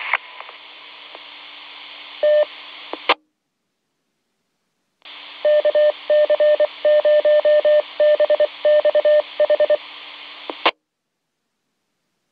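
Amateur FM repeater audio on a Motorola M-120 VHF mobile radio: open-squelch hiss with one short beep, a brief dropout, then a carrier returns with a rapid string of about a dozen short touch-tone-style beeps before the squelch cuts off.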